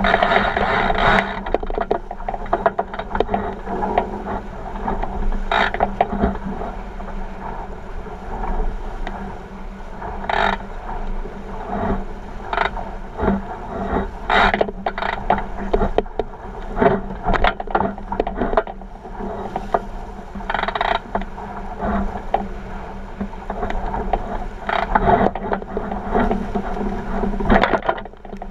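49er skiff sailing fast through chop: water rushing along the hull, with repeated sharp slaps and splashes as it hits the waves and a steady low hum underneath.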